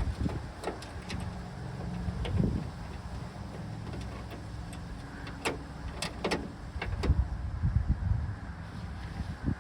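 Hand work on a car door's handle hardware: a bolt and washer being fitted, with scattered sharp metallic clicks and low knocks and rustles of handling.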